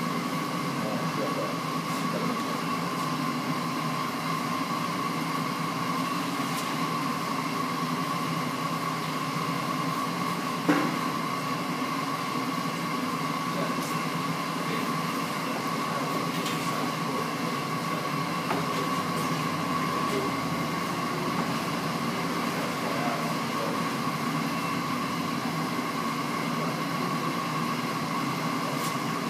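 Steady machine drone with a constant high whine over a low hum, and one sharp knock about eleven seconds in.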